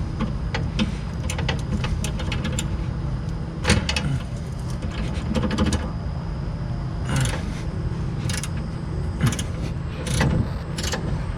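Metal tools knocking and clinking against rusted car suspension parts: a string of sharp, irregular metallic knocks over a steady low hum.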